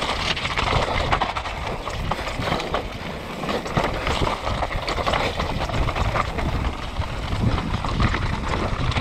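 Mountain bike rattling at speed down a rocky, loose-stone trail: tyres crunching over gravel and the frame, chain and suspension clattering with a constant rapid run of knocks.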